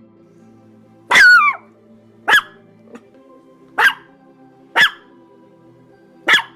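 A dog barking five times in single barks about a second or so apart, the first longer and falling in pitch, over soft background music.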